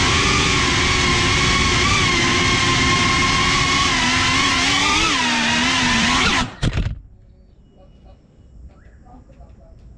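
FPV quadcopter's brushless motors and propellers whining, with several stacked tones that wobble and dip in pitch as it manoeuvres low. About six and a half seconds in the whine cuts off suddenly as the quad lands and its motors stop, leaving only faint small clicks.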